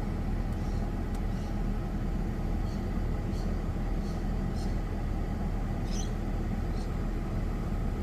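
Ford FG2 Falcon engine idling steadily under load from the aircon and electrics, its idle back to normal and rock steady after a throttle-body reset that cleared a P2110 code.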